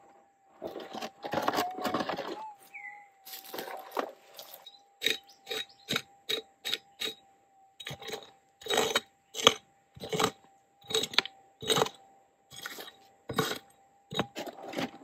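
Prospector's pick chopping and scraping into hard, gravelly mullock-heap soil: a quick series of sharp strikes from about a third of the way in. Under it is the steady threshold hum of a Minelab gold detector with no target signal.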